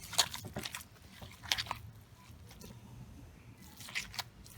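Hands squeezing and kneading raw beef mince mixed with onion paste and butter: a few irregular wet squelches.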